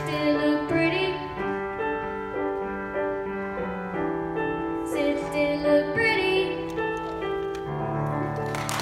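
Piano accompaniment playing held chords while a girl sings a solo through a microphone in short phrases; near the end her voice drops out and the piano plays on alone.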